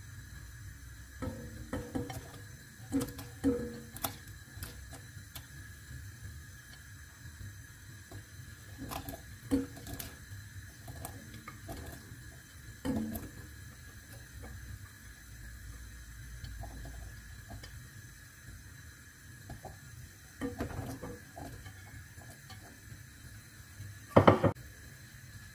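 Chunks of raw potato, onion, courgette and carrot dropped by hand into a stainless steel pot, knocking against its sides in scattered, irregular clunks, with a louder knock near the end.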